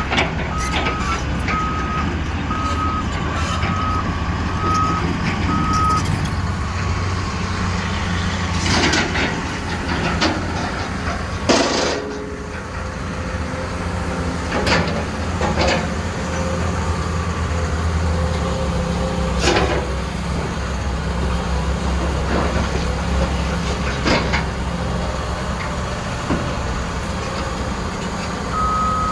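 Caterpillar 320E L hydraulic excavator's diesel engine running steadily, with its travel alarm beeping repeatedly for the first few seconds and again near the end. Several sharp knocks come through the middle.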